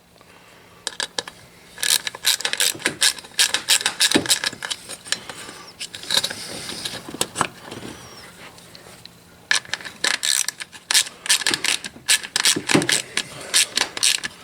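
Ratchet wrench clicking in quick runs as bolts are driven, in two spells with a short pause a little past the middle.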